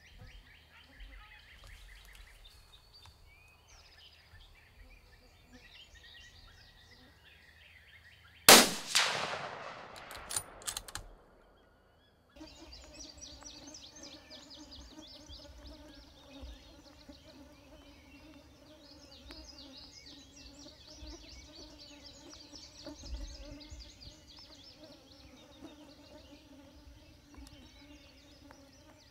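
A single gunshot about eight seconds in, very loud and dying away over two to three seconds, after faint outdoor chirping. After a brief dropout the sound resumes with steady high chirring and a faint low hum.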